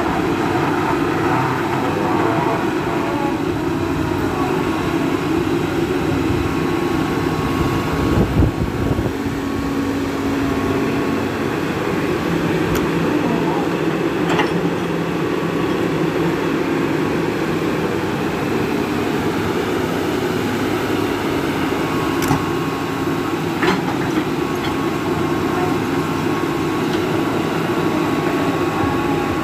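Hitachi EX200 hydraulic excavator's diesel engine running steadily under working load while it digs and swings, with thin higher tones coming and going over the engine drone. A loud knock comes about eight seconds in, and a few short sharp clicks later on.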